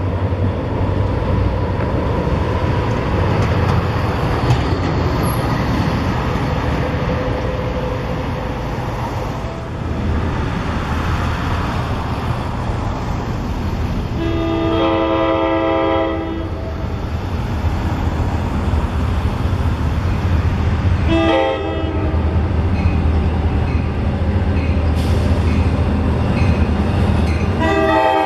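Train rumbling steadily past the station while its horn sounds a several-note chord for about two seconds halfway through, gives a short toot a few seconds later, and starts blowing again near the end.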